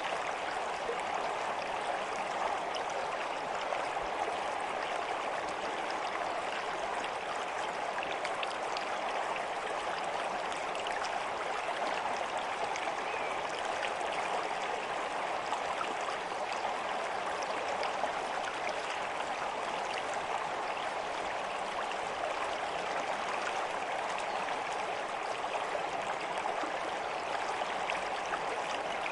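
A stream of running water, a steady babble with fine splashing that never changes in level.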